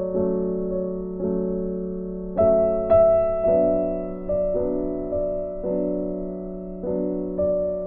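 Soft background piano music: slow chords struck every half second to a second and each left to fade.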